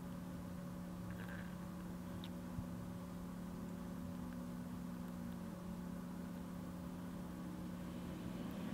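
Quiet, steady low hum of a machine running in the room, with a few faint ticks from a gasket being handled.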